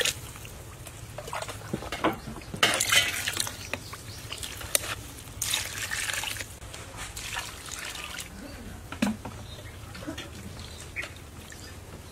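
Water sloshing and dripping in a pot of rice, in short irregular splashes with a few sharp clicks.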